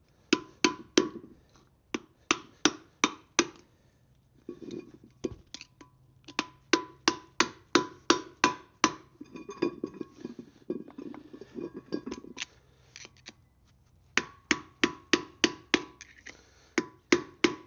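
Hammer blows beating the old wheel bearing out of a Land Rover Defender 90 hub. Sharp metallic strikes with a short ring come in runs of several, about two or three a second, with short pauses between runs.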